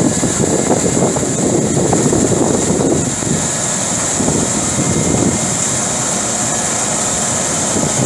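Fiatagri 3500R tracked combine harvester running under load as it cuts and threshes rice while moving past, a steady dense machine noise with a constant high hiss over it.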